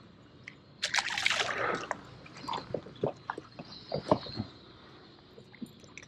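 A short burst of water splashing lasting about a second, followed by a few scattered light knocks and clicks.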